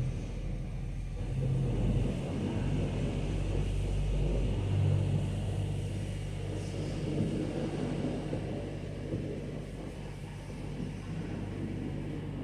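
Semi-truck diesel engine idling, a steady low rumble whose pitch shifts about five seconds in.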